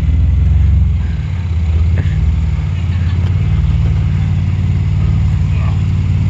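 Jeep Wrangler JK's engine running at low revs under load as it crawls over a boulder, revs rising slightly in the first second. A single sharp knock about two seconds in.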